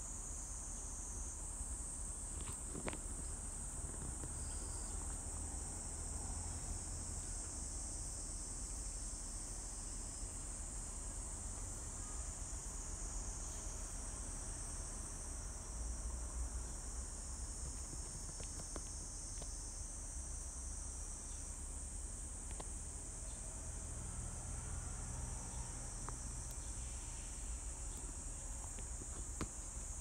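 Steady, high-pitched chorus of forest insects buzzing without a break, with a low rumble and a few faint clicks underneath.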